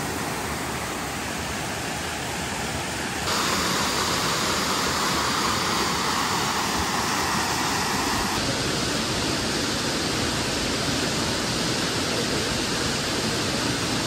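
Waterfall and river rapids rushing, a steady noise of falling and running water. It gets louder about three seconds in and changes character again a little past the middle.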